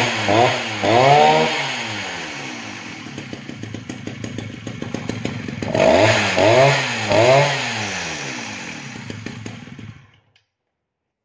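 Vintage Husqvarna E70 two-stroke chainsaw running, revved in three quick throttle blips that fall back to idle, then blipped three more times about six seconds in. The engine dies away and stops about ten seconds in.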